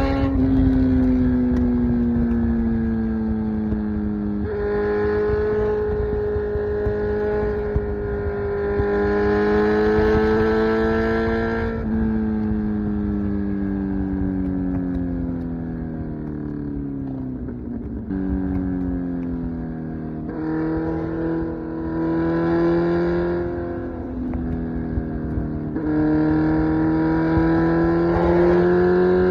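Kawasaki Z900's 948cc inline-four engine running through an SC Project exhaust while riding. Its pitch holds and creeps up under throttle, falls away steadily for several seconds in the middle as the throttle is closed, and steps up sharply a few times at gear changes. A low wind rumble runs underneath.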